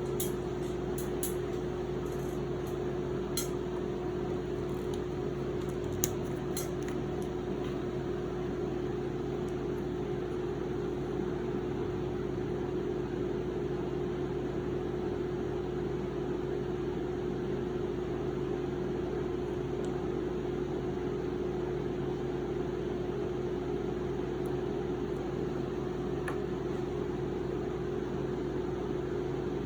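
Steady mechanical hum at an even pitch, with a few light clicks of small objects being handled in the first several seconds.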